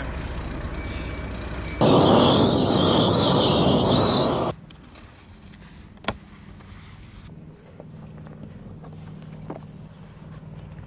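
A stiff push broom sweeping asphalt, a loud, continuous scraping rush for about three seconds that stops abruptly. After it, quiet outdoor background with a single sharp click.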